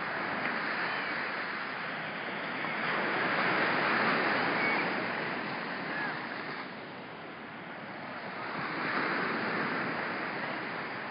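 Small surf breaking and washing up the beach, swelling twice as waves come in, with a light wind on the microphone.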